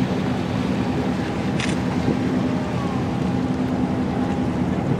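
A boat's engine running at a steady low speed, a constant hum over wind and water noise, with a short click about a second and a half in.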